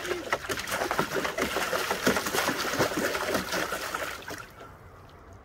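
Water splashing and sloshing in a plastic tub as a husky paws and stomps about in it, a busy run of splashes that dies down after about four seconds.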